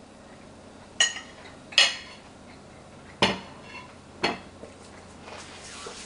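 A metal fork clinking against a plate four times while eating; each clink is short and sharp with a brief ring.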